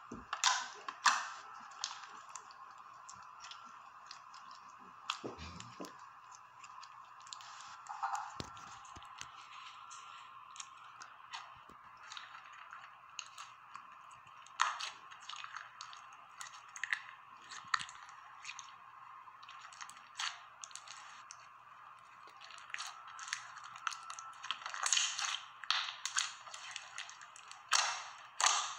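Hands squishing and pressing clear slime with coloured slime lumps in it: irregular wet crackles and clicks, busier near the end, heard thinly as if played back through a small speaker.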